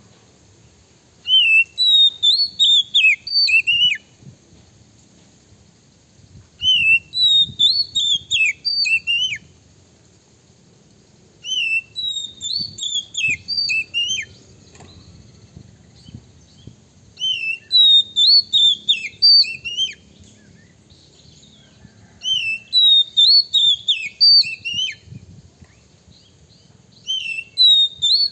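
Oriental magpie-robin (kacer) singing: six loud bursts of rapid, varied whistled notes, each about two and a half seconds long, repeated about every five seconds.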